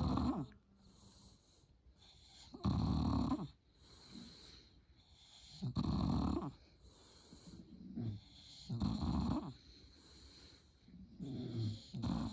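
French Bulldog snoring in its sleep: loud, rasping snores about every three seconds, with softer breaths between.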